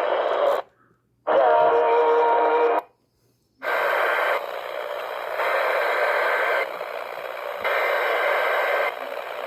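Emergency Alert System broadcast received over a static-filled radio channel. The signal drops out twice, with a short burst of steady tones in between. Then static alternates about once a second with three roughly one-second stretches carrying a faint high tone, the rhythm of the alert's repeated SAME header data bursts.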